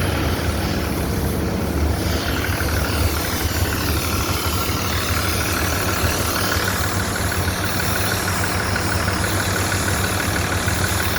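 A heavy engine on construction machinery running steadily at idle, with a thin high whine that comes in about two seconds in and holds.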